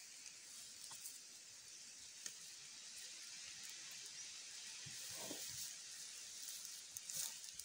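Faint, sparse sounds of a Komodo dragon swallowing a small animal's carcass: a few soft clicks, a short rasp about five seconds in and a louder one near the end, over a steady hiss.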